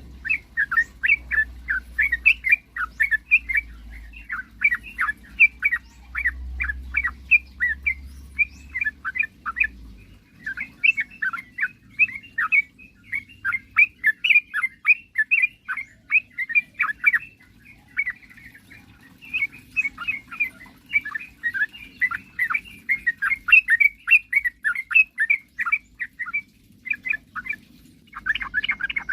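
Yellow-vented bulbul (trucukan) singing in full voice: fast runs of bubbling, chattering notes, with short pauses about ten and eighteen seconds in.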